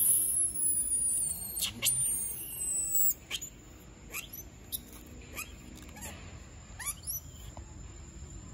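Animal calls: a louder, wavering high-pitched call over the first three seconds, then a series of short chirps that sweep quickly up in pitch, about one every half second to a second.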